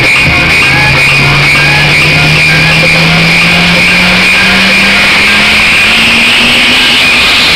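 Very loud electronic dance music from a DJ set over a PA, with a synth tone that rises slowly in pitch throughout, as in a build-up.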